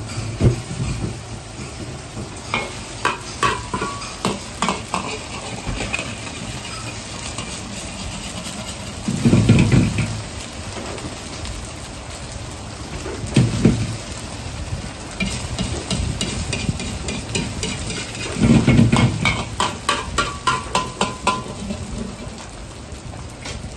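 A cake of boiled noodles frying in oil in an iron wok, sizzling steadily. Two spells of rapid metal clinking, and a few short low rumbles.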